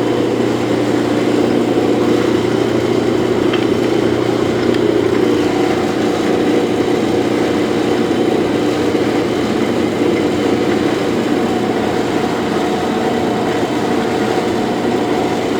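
Lodge & Shipley 18-inch heavy-duty selective head engine lathe running, its geared headstock and drive motor giving a steady gear whine over an electrical hum. The whine shifts slightly about five seconds in.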